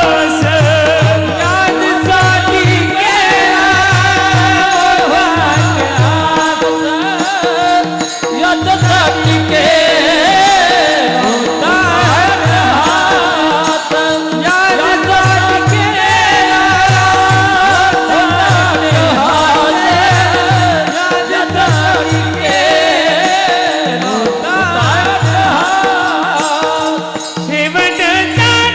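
A devotional abhang sung in a male voice with a wavering, heavily ornamented melody, over a steady held drone and a regularly repeating drum beat.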